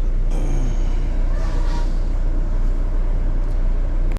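Steady low rumble of a sleeper coach bus on the move, engine and road noise heard from inside the passenger cabin.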